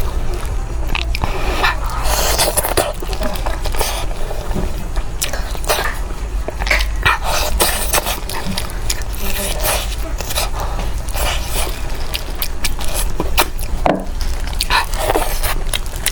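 Close-miked eating sounds of a person eating seafood: a run of irregular wet bites, chews and mouth clicks with no steady rhythm.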